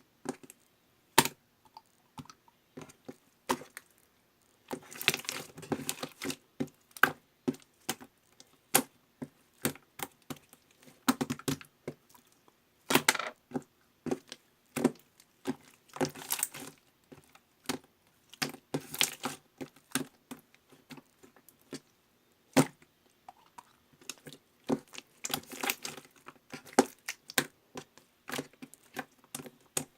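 Pearl slime being pressed, poked and stretched by hand, making sharp clicks and crackling air-bubble pops that come in denser bunches every few seconds.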